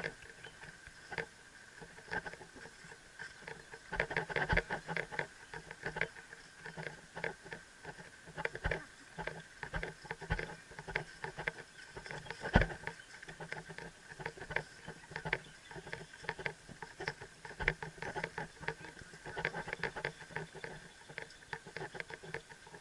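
Helmet-mounted camera knocking and rattling against a rider's helmet on a walking horse: a string of irregular clicks and taps.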